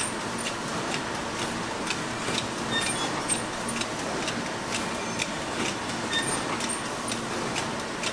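Ice cream production-line machinery running: a steady mechanical din with frequent uneven clicks and short, high chirps.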